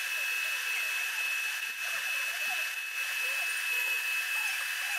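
Drilling machine running steadily with a high, even whine as its home-made stepped drill cuts out the body of a broken, seized spark plug from a cylinder head.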